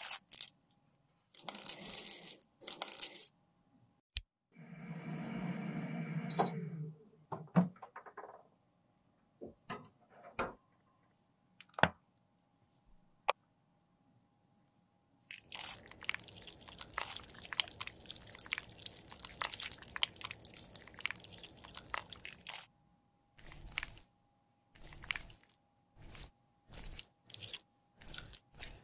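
Close-up handling sounds of a blush cushion compact being refilled. A plastic piping bag crinkles early on, a low squelching stretch comes about five seconds in, then a few sharp clicks, and a long crackling, squishing stretch runs from about 15 to 22 seconds in, followed by short squishes.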